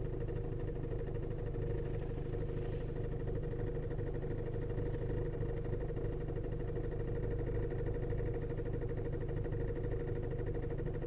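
Volkswagen Golf GTI Mk5's 2.0 TFSI four-cylinder engine running steadily at idle, with an even hum.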